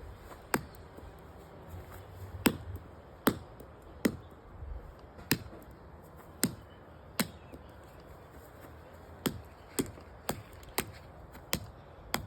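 An alarm clock being struck again and again to smash it: about a dozen sharp, separate blows at uneven intervals, each a short crack.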